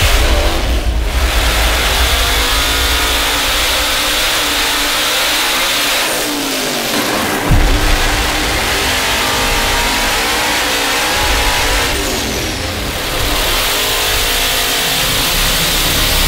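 ProCharger-supercharged Fox-body Ford Mustang engine running hard and loud on a hub dyno. About six seconds in the revs fall away, a sharp bang comes a second later, and then it pulls up again, easing off briefly once more about twelve seconds in.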